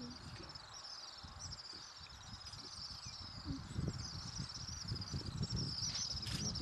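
Insects chirring in fast pulsing trills, steady and high-pitched, with an irregular low rumble underneath that grows louder in the second half and a single sharp click near the end.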